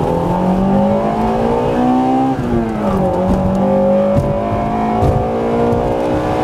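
Car engine accelerating hard, its pitch climbing, dropping at a gear change about two and a half seconds in, then climbing again.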